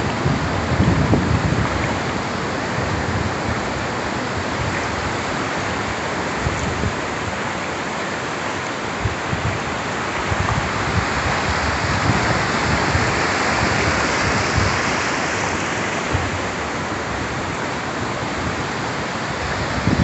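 Surf on a flat sandy beach: a steady rush of breaking waves and foam washing up the shore, swelling a little about halfway through. Wind buffets the microphone with a few low bumps near the start and again at the end.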